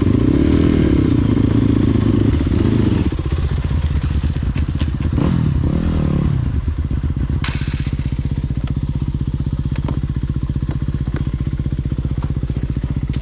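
Dirt bike engine revving in uneven surges for about three seconds and again briefly around six seconds in, then settling into a steady idle, with a few sharp clicks over it.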